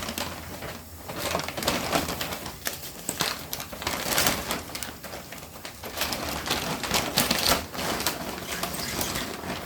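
Shopping bag rustling and crinkling in irregular crackles as a long bunch of spinach is folded and pushed down inside it.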